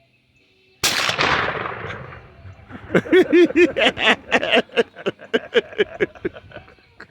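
A single blast from a double-barrel 12-gauge shotgun firing 00 buckshot, about a second in, trailing off over about a second. Then a person's voice breaks out in quick repeated bursts, three or four a second.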